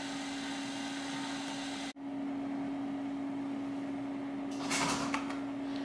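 Steady hum of the running HP-85 computer setup with one constant tone, dropping out for an instant about two seconds in. Near the end come a few quick clicks of keys pressed on the HP-85 keyboard.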